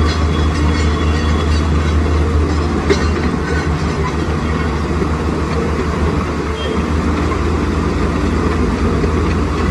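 Heavy diesel engine of a tracked excavator running steadily with a deep hum, over the rush of fast-flowing floodwater.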